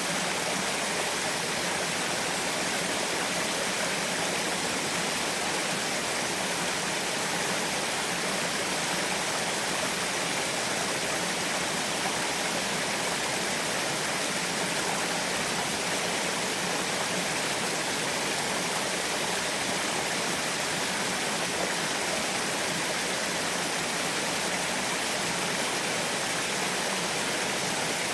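Small waterfall: water falling and splashing in a steady, unbroken rush with no low rumble.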